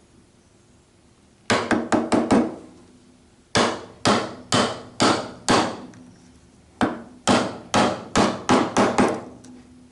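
A chisel being struck with a mallet while chopping out a mortise in timber: three runs of sharp blows, several in quick succession in each, with short pauses between the runs.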